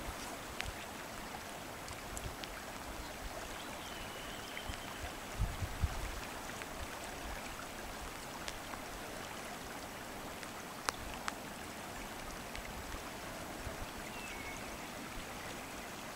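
Steady rushing of a shallow river flowing over riffles and stones, with a brief low thump about five and a half seconds in.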